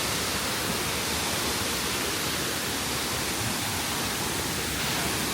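Steady rushing roar of a waterfall, an even wash of falling water with no breaks.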